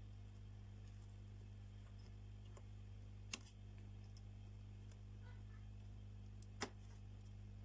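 Two sharp, light clicks about three seconds apart over a faint, steady electrical hum.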